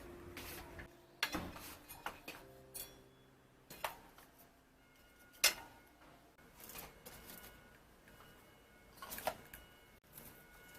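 Scattered knocks and clicks, a second or more apart, of household objects being handled and set down.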